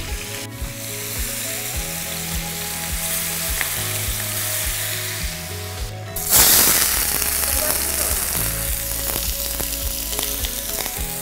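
Oil and ghee sizzling with whole spices in a hot pan, the sizzle jumping sharply louder about six seconds in as sliced onions are dropped into the oil to begin frying. Soft background music plays underneath.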